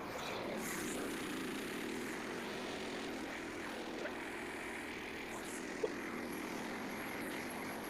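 Frontier OS27 portable band sawmill running steadily under engine power, with a couple of faint clicks partway through.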